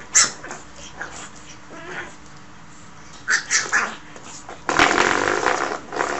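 Pug puppy giving short, sharp yips, three in quick succession midway, while it paws at a spring door stopper. Near the end the stopper, released, twangs with a buzzing boing for over a second.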